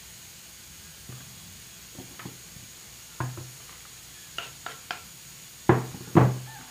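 A kitchen knife knocking and scraping on a wooden chopping board as chopped banana flower is cut and pushed off into a plastic bowl: a few light taps, then two loud wooden knocks near the end.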